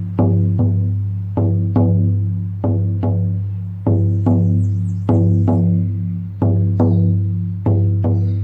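Lakota healing frame drum beaten in a heartbeat rhythm: pairs of strikes about half a second apart, a pair roughly every 1.25 seconds, each stroke ringing on with a deep, slowly fading boom.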